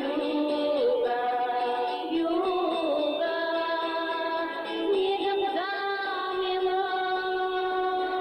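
Music: a song with a female voice singing long held notes, some gliding between pitches.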